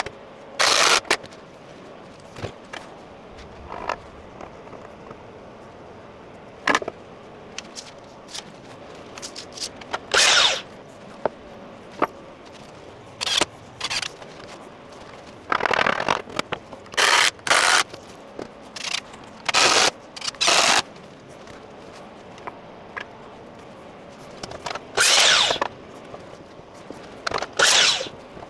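Carpentry work on timber studwork: a cordless drill boring into a stone wall and driving fixings through the battens, in a dozen or so short bursts of under a second each, with knocks and scrapes of timber between.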